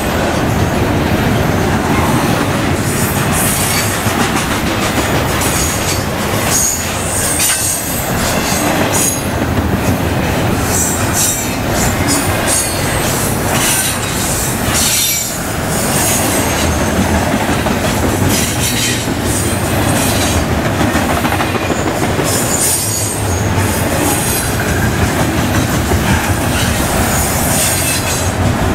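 Double-stack intermodal freight cars rolling past: a loud, steady rumble of steel wheels on rail. Over it come repeated high-pitched wheel squeals and the clack of wheels over rail joints.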